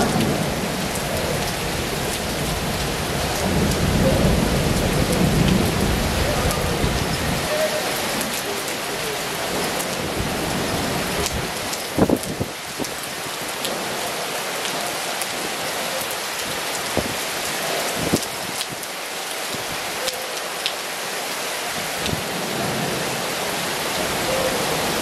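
Heavy rain falling steadily, with a low rumble through the first seven seconds or so. A few sharp taps of drops land close by, the loudest about twelve seconds in.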